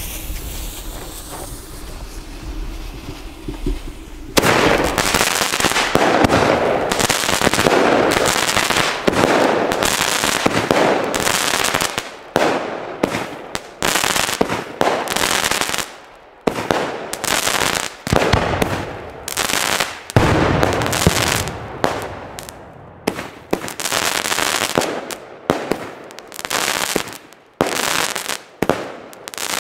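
Fuse hissing for about four seconds, then a New Beastmaster 30 mm, 18-shot fireworks battery going off. Its shots and aerial bursts come in a dense run for several seconds, then as separate bangs about a second apart.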